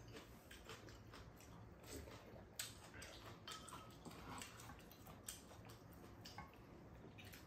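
Quiet eating sounds: a handful of soft clicks of spoons and chopsticks against bowls and a pan, with faint chewing.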